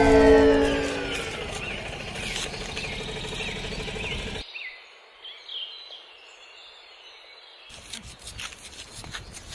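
Police siren winding down, its pitch falling and its level fading over the first two seconds. Then a fainter steady hum and bird chirps, with a run of light taps near the end.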